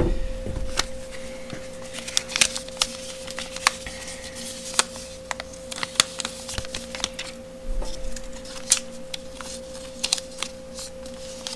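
Small tools and packaging being handled on a table: scattered sharp clicks, taps and rustles over a steady faint hum.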